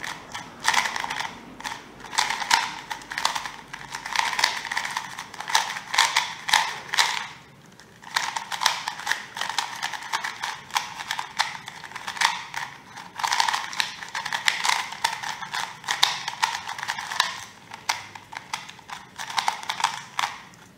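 Qiyi MS 2x2 magnetic speed cube being turned rapidly by hand: a dense run of quick plastic clicks and clacks, pausing briefly about eight seconds in.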